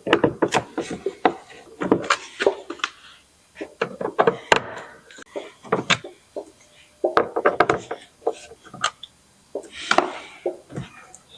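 Irregular clicks, taps and knocks of a T20 driver and hard plastic as screws are backed out of the door speaker mount.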